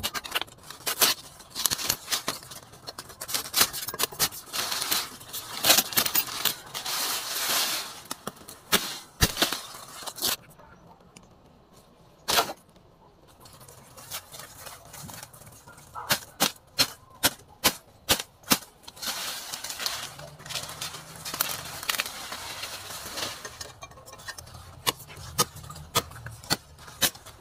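Sugarcane being cut and stripped by hand: dry leaves rustling and crackling, with sharp chops and snaps of cane. The work is busiest in the first ten seconds, then breaks into scattered single cracks.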